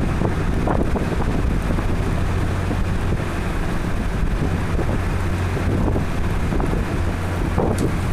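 Typhoon-force wind blowing steadily, with heavy low rumbling buffeting on the microphone.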